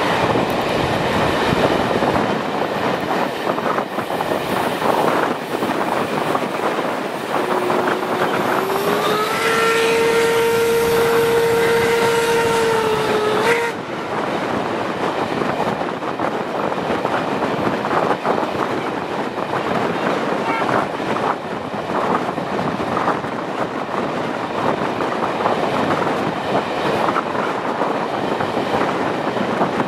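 A special train running, with wheels clattering on the rails and wind noise as heard from an open coach window. About a third of the way in, the locomotive sounds one long whistle blast of about six seconds. The blast slides up in pitch as it opens, holds steady and cuts off suddenly.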